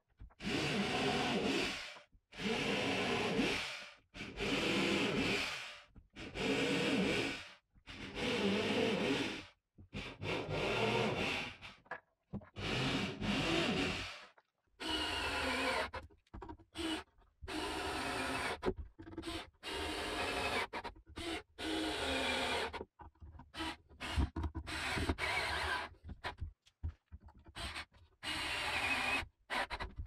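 Corded electric drill boring holes into the wooden wall of a hive box, in about seven runs of a second and a half to two seconds each, the motor pitch rising and falling with each run. From about halfway on, a cordless drill-driver drives screws in many shorter bursts, fastening a metal frame rail to the wood.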